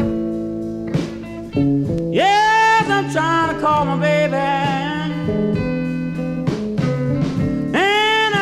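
Louisiana blues record playing back from vinyl in mono: guitar accompaniment with a wailing lead line that bends up in pitch about two seconds in and again near the end.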